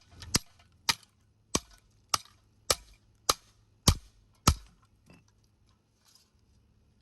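About eight sharp, evenly spaced blows on a Hampton Bay ceiling fan, roughly one every 0.6 seconds, stopping after about four and a half seconds, followed by a few faint ticks.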